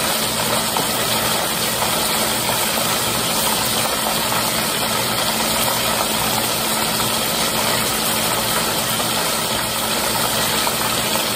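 Chicken patties deep-frying in a Fry Daddy electric deep fryer: a steady sizzle of bubbling oil with a faint low hum underneath.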